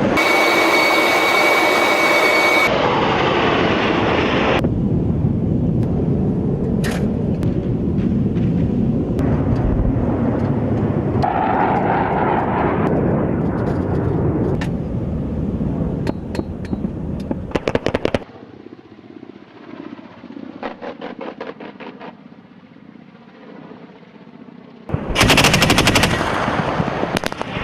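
Rapid automatic gunfire from military weapons in several cut-together shots. A dense, sustained stretch of fire gives way about 18 s in to quieter, sparser rapid bursts, then a loud burst of fire near the end.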